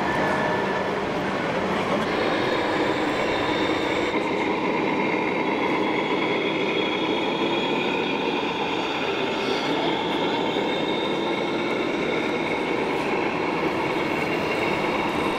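Continuous, even mechanical rumble with faint high whines over it, with no pauses or sudden sounds.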